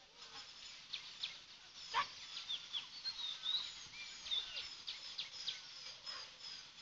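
Birds chirping, with many short high calls and quick falling notes repeating and overlapping. A single sharp click sounds about two seconds in.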